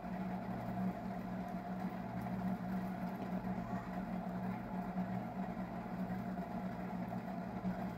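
Steady low mechanical hum with a few constant tones, unchanging throughout; no hammer strikes stand out.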